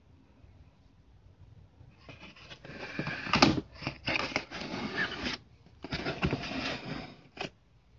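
Handling noise: rough scraping and rubbing in several bursts as the recording device is moved and handled close to the boots, loudest about three and a half seconds in.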